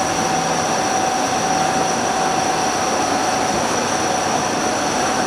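CNC lathe turning a spinning metal workpiece under flood coolant: a steady hiss of coolant spray and machining noise, with two steady whine tones, one mid-pitched and one high.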